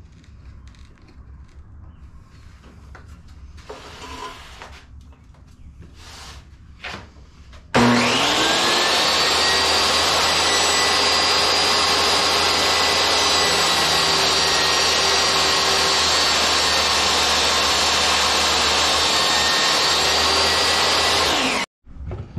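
DeWalt jobsite table saw switched on about eight seconds in: its motor spins up with a short rising whine, then runs steadily at full speed with a high whine while the taper jig feeds the workpiece. The sound cuts off abruptly near the end. Before start-up there are only faint clicks of the jig's clamps being set.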